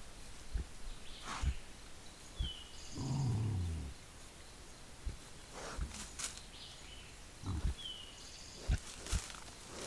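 Feral hog giving one low grunt about three seconds in, about a second long and dropping in pitch, with scattered soft thumps and rustles from the hogs moving and rooting in the undergrowth.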